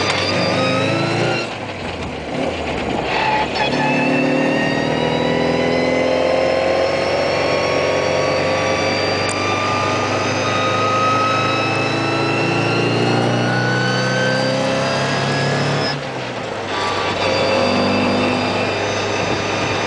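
A Mini Cooper 998cc four-cylinder engine with a Weber 40 carburettor, heard from inside the cabin, pulling and revving up on the road. Its note rises slowly through long pulls and drops back briefly about 2 seconds in and again near 16 seconds.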